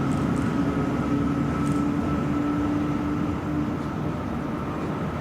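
A vintage Tait electric suburban train running, giving a steady rumbling noise with two steady humming tones over it.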